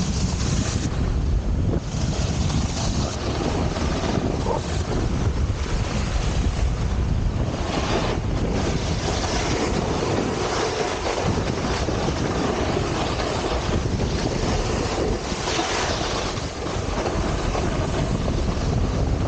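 Wind buffeting the camera microphone over a snowboard sliding and scraping across packed snow. The scraping swells and fades several times.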